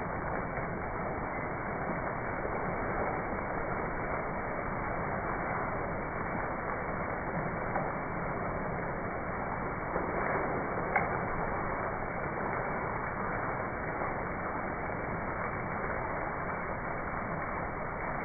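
Steady rain falling, heard as a continuous even hiss, with a single sharp tick about eleven seconds in.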